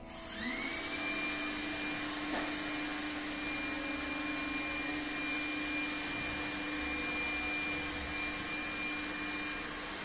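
Vacuum cleaner switched on: a rising whine as its motor spins up over the first half second, then running steadily with an even whine over the rush of air.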